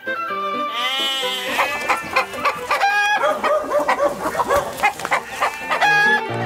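Show intro music with farm-animal sound effects laid over it: a wavering bleat about a second in, then a busy run of short animal calls over the music.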